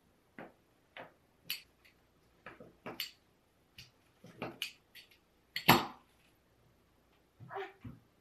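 Pastry wheel cutting rolled pie dough into strips on a silicone baking mat: a dozen or so short clicks and taps as the cutter is pressed down and drawn through, the loudest a little past halfway.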